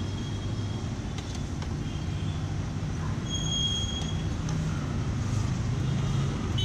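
Street traffic: a steady low engine rumble from passing vehicles, with a brief high squeal about three seconds in.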